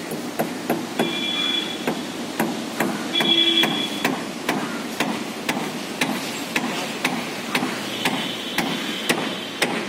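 Steady hammering, sharp blows about twice a second, as on a building site.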